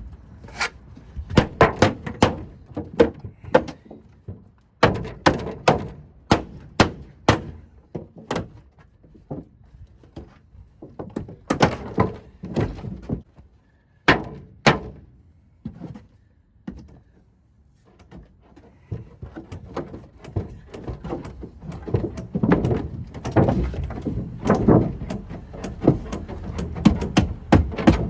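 Irregular knocks and thuds from work on an air-conditioning unit's plenum and ductwork, coming in quick runs, with a quieter spell of a few seconds a little past the middle.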